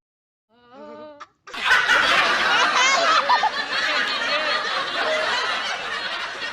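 A brief voice sound, then loud laughter of several voices at once, starting suddenly about a second and a half in.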